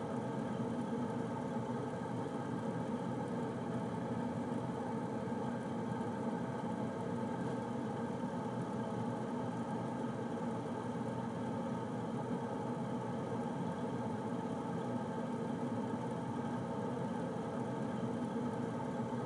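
Air conditioner running with a steady, even hum and whir of fan and compressor.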